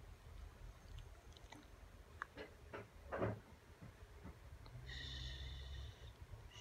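Small dog snuffling and licking at a hand: soft wet clicks and short breathy puffs, the loudest a snort-like puff about three seconds in. Near the five-second mark a steady high whine lasts about a second.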